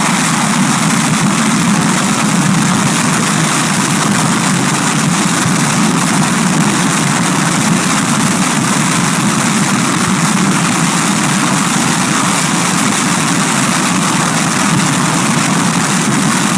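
F-16 fighter's jet engine running at full afterburner on the ground: a steady, loud jet noise.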